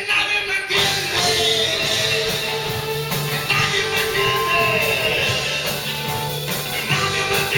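Rock band playing live, with a singer.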